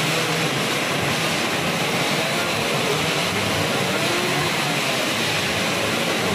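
A grid of two-stroke 120cc underbone racing motorcycles running together at the start line, a dense steady buzz with engines revving up and down through it.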